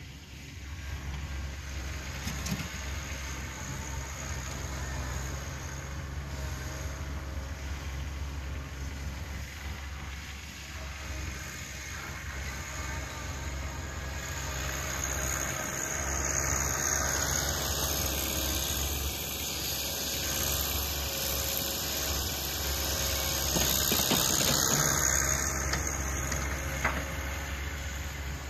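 John Deere 1026R compact tractor's three-cylinder diesel running steadily with a low hum while it moves snow with its front loader. A broad rushing noise swells in the second half and fades near the end.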